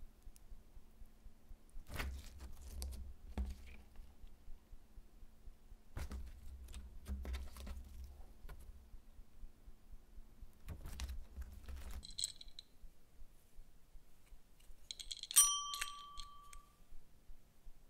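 Slime squished and stretched by hand, with soft sticky clicks and low thuds. Near the end a desk call bell is struck once and rings on for about a second and a half.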